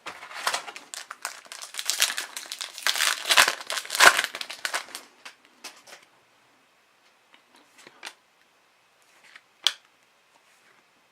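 Crinkling of a foil hockey card pack wrapper as it is torn open and pulled off the cards, lasting about five seconds. A few faint clicks of cards being handled follow, with one sharper click near the end.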